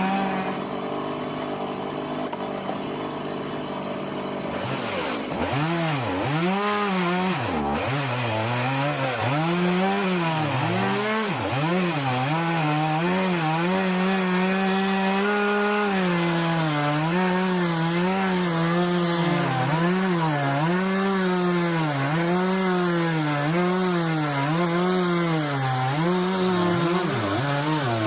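Chainsaw running under load as it rips lengthwise through a log in a mini chainsaw mill. The engine pitch rises and falls over and over as the chain bogs in the cut and recovers.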